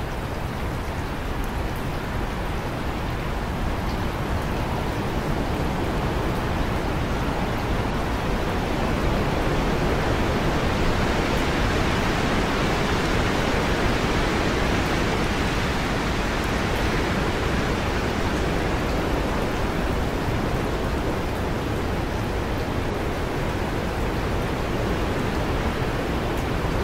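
Heavy rain falling steadily, a dense even hiss that grows a little louder toward the middle.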